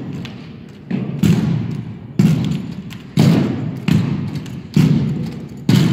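Drill rifles struck in unison by an armed drill team during a rifle routine: seven sharp knocks at uneven spacing, each echoing off the walls of a large gymnasium.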